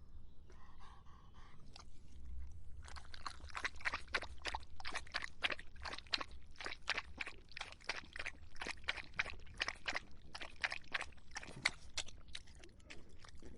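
A dog lapping water: a quick, even run of wet laps, about three a second, starting about three seconds in and stopping near the end, over a low steady hum.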